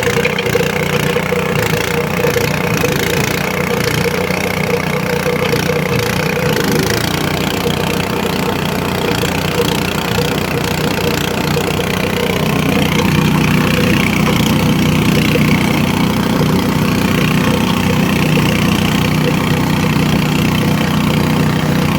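Organic waste shredder-grinder machine running steadily, with faint ticking over the first several seconds. Its low tone grows fuller about twelve seconds in.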